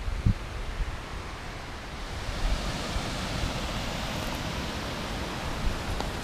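Wind gusting and buffeting the microphone, a steady rush with low thumps, the hiss swelling about two seconds in.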